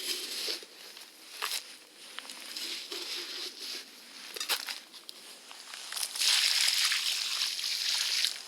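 Water sloshing in a campfire pit of wet, still-hot ash, with scattered scrapes and knocks. About six seconds in, a steady loud hiss lasting about two seconds as more water is poured onto the ash.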